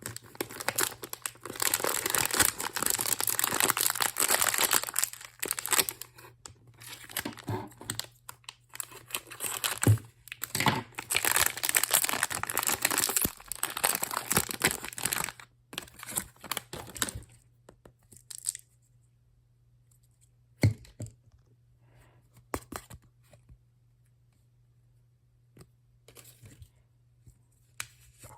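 Plastic and foil packaging being torn open and crinkled by hand, in long stretches of rustling that stop about halfway through, followed by a few scattered light clicks and taps of handling.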